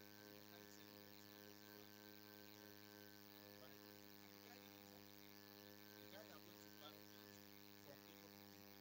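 Faint steady electrical mains hum, a stack of evenly spaced tones, over near silence, with a few soft ticks in the second half.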